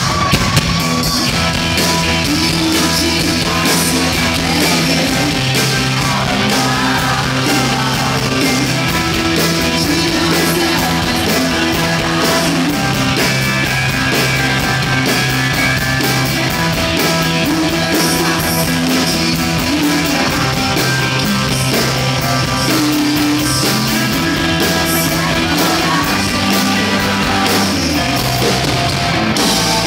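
Live rock band playing loudly, with electric guitars, bass, drums and keyboard, and singing at times.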